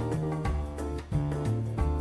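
Instrumental background music with a steady beat and a stepping bass line.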